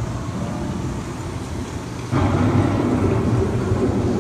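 Storm sound effects from a dark-ride scene: a steady rumbling wash of wind and thunder that swells suddenly louder about two seconds in.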